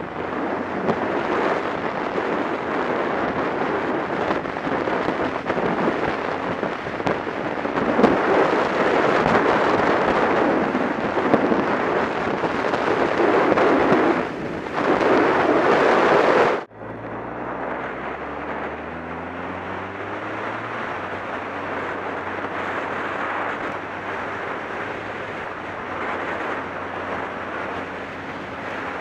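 Heavy wind buffeting on the microphone of a camera on a moving motorcycle, nearly drowning the engine. About two-thirds of the way through it cuts abruptly to a much quieter ride, with the wind filtered by a fur wind muff. Here the motorcycle engine is heard plainly, its pitch rising as it accelerates and then holding steady.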